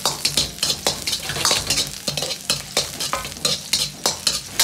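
Scallion, ginger and garlic sizzling in hot oil in a wok as they are stir-fried until fragrant, with a steel ladle scraping and clinking against the wok about twice a second.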